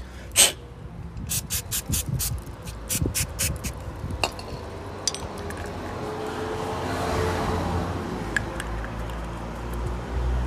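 Aerosol brake-cleaner spray can being fired at a removed oxygen sensor to clean soot off it: one sharp hiss, then a quick run of about eight short squirts. In the second half a swelling, even rushing noise comes up.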